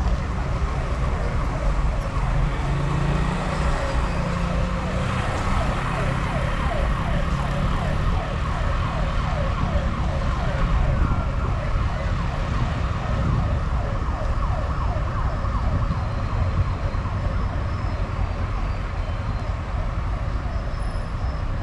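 A siren yelping, a fast repeating rise-and-fall tone, clearest through the middle stretch. Steady engine and tyre noise from the car runs underneath.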